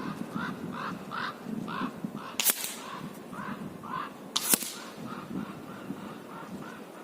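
Two sharp air rifle shots about two seconds apart, over a bird calling again and again in short, evenly spaced calls.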